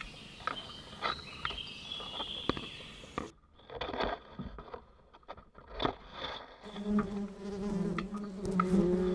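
Bees buzzing close by: a steady droning hum that comes in about seven seconds in, after a stretch of scattered small clicks and crackles.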